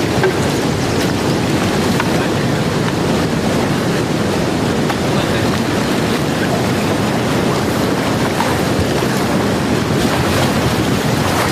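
Fast-flowing river water rushing steadily, churning white around wading legs and an inflatable raft.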